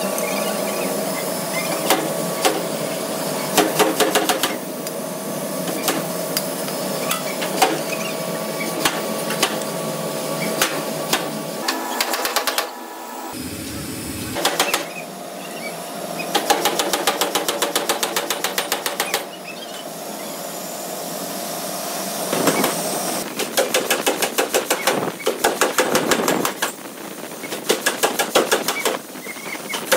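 Metalworking machinery running with a steady hum, broken by rapid trains of repeated metal knocks that come in bursts and stop briefly about halfway through.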